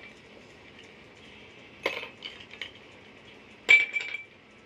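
Ice cubes dropped by hand into drinking glasses, clinking against the glass. There are two clusters of clinks, one about two seconds in and one near the end; the later one is loudest and has a short ring.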